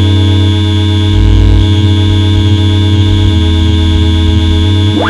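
Electronic noise music: a dense drone of steady buzzing tones over a loud low hum, its layers shifting a little over a second in and again around three seconds. Near the end a tone sweeps sharply upward.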